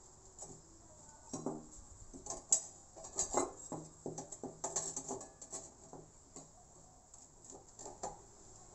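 Light clinks, knocks and scrapes of cut square steel tubing and steel plate being handled and test-fitted against each other, with the sharpest clinks about two and a half and three and a half seconds in.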